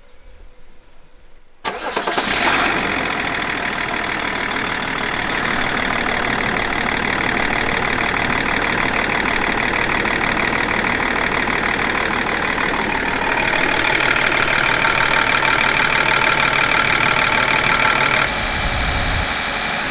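BMW 530d's 3.0-litre straight-six turbodiesel starting up suddenly about two seconds in, then running steadily; the note changes about two-thirds of the way through and drops in level near the end.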